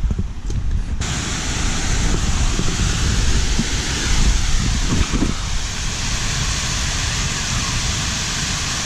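Waterfall rushing, a steady, even rush of falling water that comes in abruptly about a second in, with wind rumbling on the microphone underneath.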